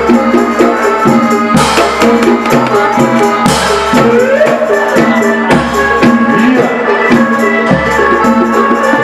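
Loud, lively folk music with drums and jingling percussion under repeated melodic notes. A deep beat falls about every two seconds, and a note swoops upward about four seconds in.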